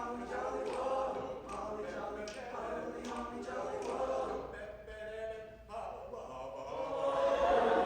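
A high school choir singing in parts, with no accompaniment clearly heard. The sound thins to fewer voices about five seconds in, then swells louder near the end.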